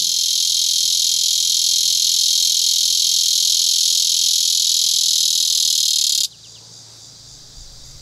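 Prairie cicada (Tibicen dorsatus) singing: a loud, steady, high buzz that cuts off suddenly about six seconds in.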